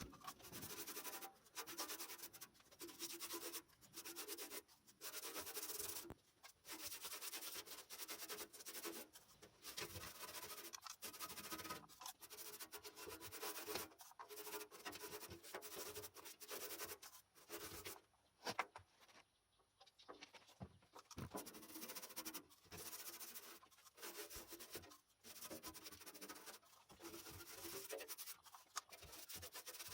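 Faint scrubbing with a hand abrasive: repeated back-and-forth strokes, each lasting from under a second to a couple of seconds with short breaks between, and a quiet gap of about two seconds past the middle.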